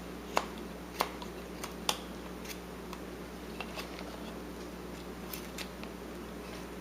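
Carving knife taking small cuts in wood: short, sharp snicks at irregular intervals, about one a second, over a steady low hum.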